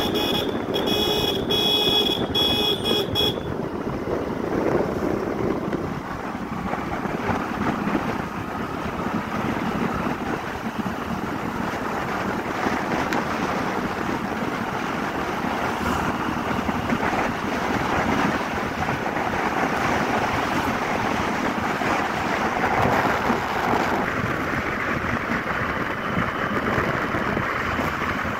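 Wind rushing over the microphone of a moving motorbike, with steady road and engine noise. A horn sounds in short pulses for about the first three seconds.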